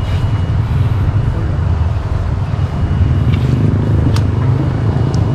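Steady low rumble of wind buffeting an outdoor camera microphone, with a couple of light clicks near the end.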